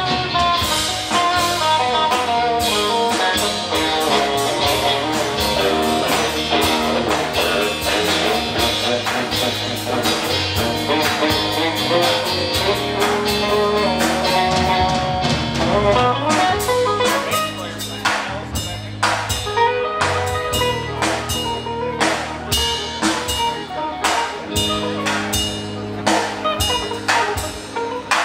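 Live rock band playing electric guitars, bass guitar and drums. The guitar lines are dense and busy for the first half, then thin out about halfway through, leaving a steady drum beat and held bass notes at the front.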